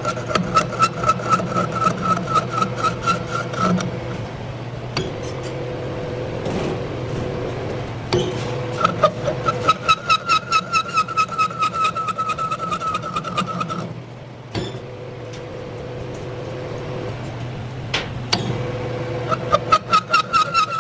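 Metal lathe running with a steady hum while a tool scrapes a screw thread on the turning workpiece to clean it up. The scrape pulses about four to five times a second, once per turn, with a ringing squeal. It comes in three spells, with only the machine hum between them.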